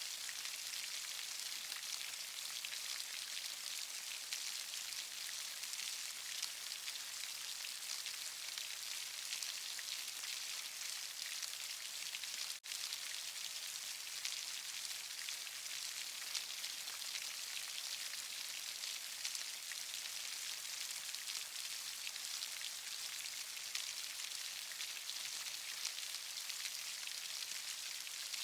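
Rain falling steadily, a dense even patter of many drops, with a split-second break in the sound about twelve seconds in.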